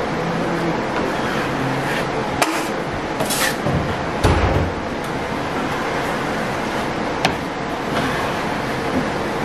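Steel taping knife scraping joint compound from a mud pan and spreading it along a drywall corner bead, with a few sharp clicks of the knife and a dull thump a little over four seconds in, over a steady background hiss.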